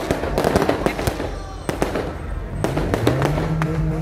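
Aerial fireworks going off in quick succession, a busy run of bangs and crackling. Near the end a steady low held tone starts up beneath them.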